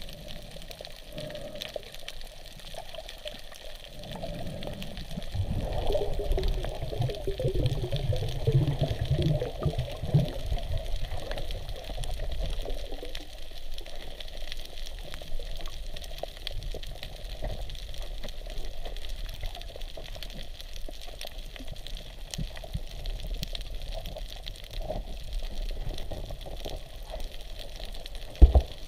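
Underwater ambience picked up through a waterproof camera housing: a steady hiss with fine crackling clicks, and water surging and sloshing around the housing, loudest from about five to thirteen seconds. A single sharp knock comes near the end.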